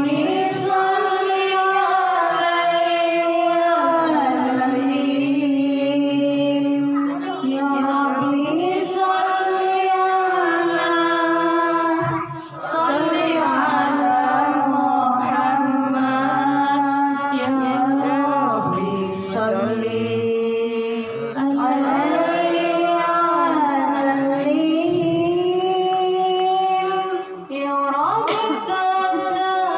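A woman sings an Islamic devotional chant (sholawat) into a microphone, with long held notes ornamented by winding melodic turns. She pauses briefly for breath twice.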